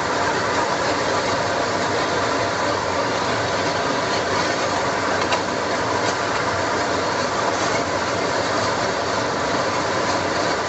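Tempoyak (fermented durian paste) frying in a wok with a steady sizzle, stirred with a wooden spatula that scrapes the pan now and then.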